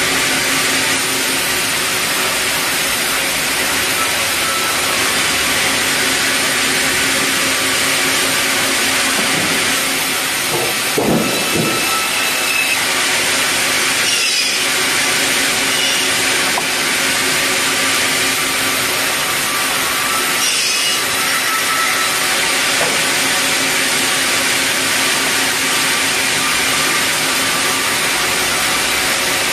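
Large vertical band resaw ripping red meranti hardwood boards: a steady, loud hiss and hum of the running blade cutting through the timber. There is a brief knock about eleven seconds in.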